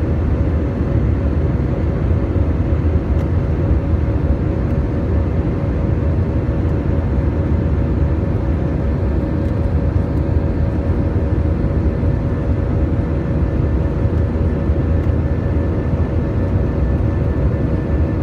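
Airbus A320 engines and the air rushing past the fuselage, heard inside the cabin during the climb after takeoff: a steady low rumble with a few faint steady tones over it.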